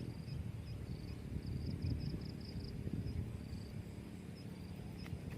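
Insects chirping in short pulsed trills, high-pitched and repeated, over a low rumbling background noise.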